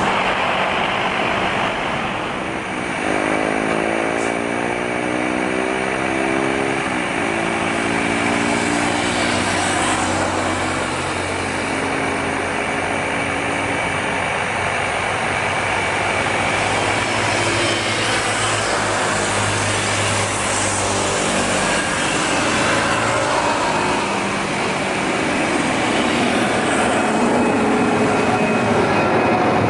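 Boeing 737-800's CFM56 turbofan engines at takeoff thrust as the jet rolls and climbs past. A loud, steady rush of jet noise with a thin high whine, its tone sweeping up and down as the aircraft goes by.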